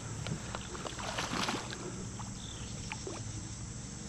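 Water splashing as a hooked smallmouth bass swirls at the surface beside a kayak, with a few small clicks scattered through and a louder splash about a second in.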